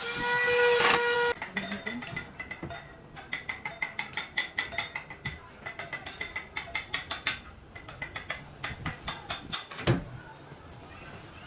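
Cordless drill/driver driving screws through wardrobe door hinges: a short steady motor whine at the start, then a long run of rapid, even clicks, about five a second, and a single sharp knock near the end.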